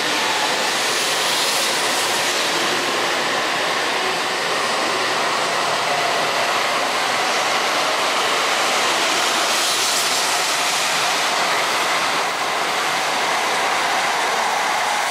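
JR Central N700S Series Shinkansen accelerating away from the platform, its cars passing close by: a loud, steady rush of wheels and air with a faint whine running through it.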